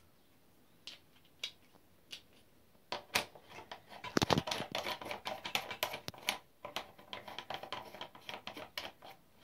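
Metal clicks and scrapes of a steel crimp die being fitted back into the head of a shotgun-shell reloading press. A few single clicks come first, then a quick run of clicking and rattling with a heavier knock about four seconds in.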